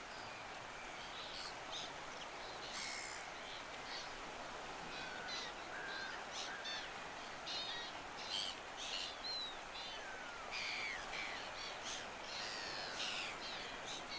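Several birds chirping and whistling, with many short, overlapping calls and a few sliding whistles, over a steady background hiss.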